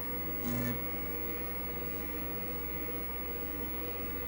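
Steady hum and whine of a vintage IBM PC's cooling fan and spinning hard disk while the machine boots from its internal hard drive. A short low sound comes about half a second in.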